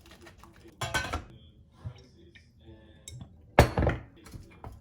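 Dishes and cutlery clinking and knocking, with two louder clatters, one about a second in and one near the end, and lighter clinks between.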